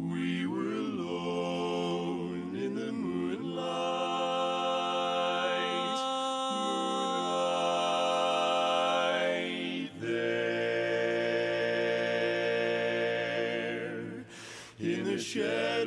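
Male barbershop quartet singing a cappella in close four-part harmony (tenor, lead, baritone and bass), holding long sustained chords. The singing comes in suddenly at the start and breaks off briefly about ten seconds in and again near the end.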